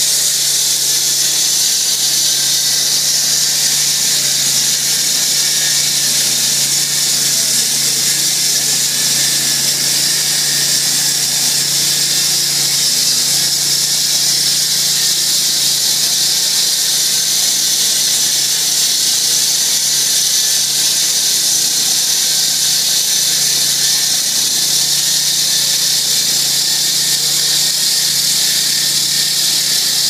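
Multiquip SP2 20 hp self-propelled walk-behind concrete saw running steadily while its 356 mm diamond blade wet-cuts a 60 mm deep joint in two-day-old green concrete. A loud, steady, high-pitched hiss of the blade in the concrete rides over a low, even engine tone.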